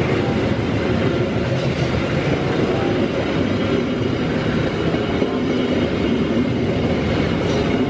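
Passenger train coaches rolling past, a steady rumble and clatter of steel wheels on the rails.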